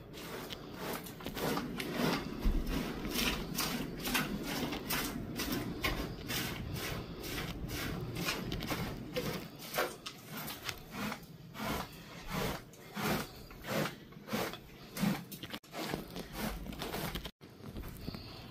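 A run of short rubbing and knocking sounds, irregular at first and more regular in the second half at about one to two a second, over a low steady background.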